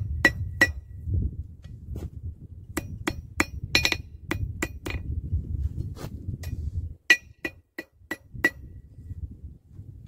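Hand hammer striking hot 3/8-inch rebar against a steel anvil, about fifteen sharp ringing blows in irregular clusters with a pause of a couple of seconds in the middle, as a hook is bent and squared up. A low background rumble underneath stops about seven seconds in.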